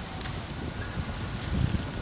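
Wind buffeting the microphone: an uneven low rumble over a steady hiss, gusting harder near the end.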